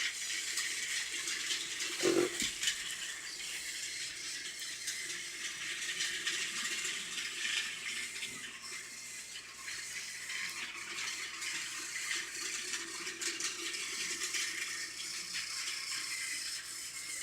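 Motorized toy train running along its track with a steady rattling whir. There is a louder knock about two seconds in.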